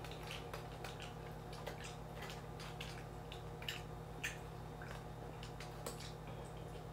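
Eating sounds: soft, irregular wet clicks and smacks as baked chicken is pulled apart with the fingers, put in the mouth and chewed, over a faint steady hum.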